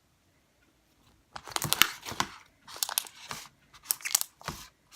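A large batch of slime being squeezed and worked by hand, giving bursts of crackly, clicking pops from trapped air, starting about a second and a half in.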